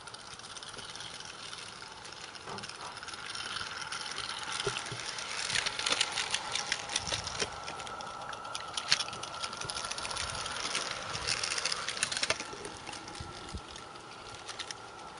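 A 16mm-scale live-steam narrow gauge model locomotive running past with a train of wagons on a garden railway: fast chuffing and the clatter of wheels on the track, loudest midway as it passes close and fading away near the end.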